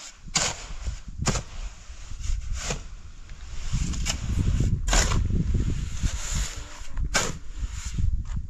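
Sharp knocks or strikes, about six or seven at irregular intervals, over a low rumble that grows louder about halfway through.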